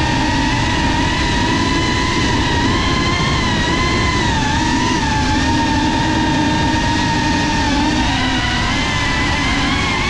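GEPRC Cinelog 35 cinewhoop FPV drone's motors and ducted propellers whining steadily, the pitch wavering up and down with throttle, over a rushing noise of prop wash and wind.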